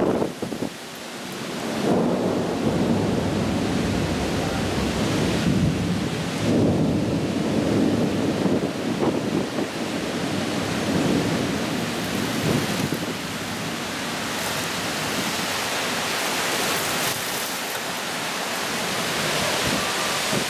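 Thunder rumbling for several seconds through heavy rain. About two-thirds of the way in, the rumble dies away and the steady hiss of heavy rain grows stronger.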